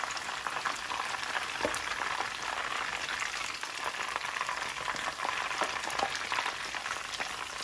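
Chicken pieces frying in a pan of hot oil: a steady sizzle with a constant fine crackle throughout.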